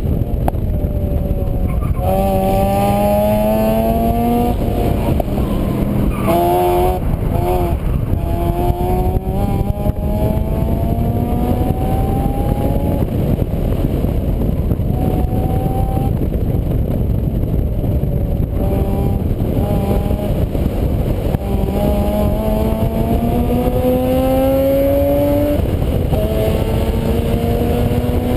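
A vehicle engine climbing in pitch as it accelerates, dropping back and climbing again several times as it shifts through the gears. A heavy, steady rumble runs under it the whole time.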